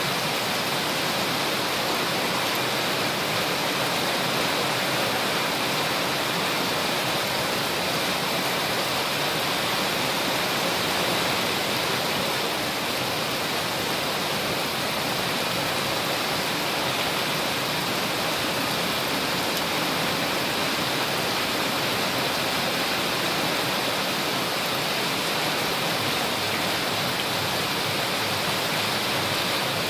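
Heavy monsoon rain pouring down steadily on a flooded courtyard, an even, unbroken hiss of rain on standing water.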